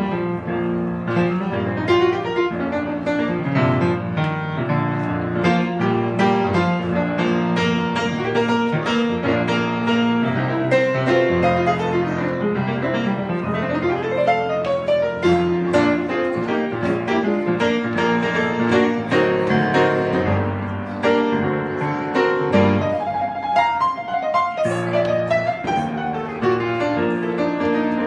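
Grand piano playing a gospel song, with note after note sounding continuously and a melody line that slides in pitch a couple of times over it.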